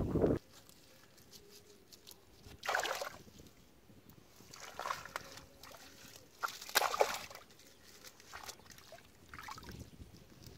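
Hands sloshing and splashing in shallow muddy water in several short bursts, as bunches of grass are pressed onto a submerged bamboo fish trap. Wind rushing on the microphone cuts off just at the start.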